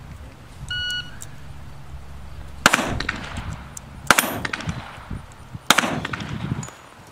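A shot-timer beep, then three rifle shots about a second and a half apart, each followed by a short ringing, as steel plate targets are engaged.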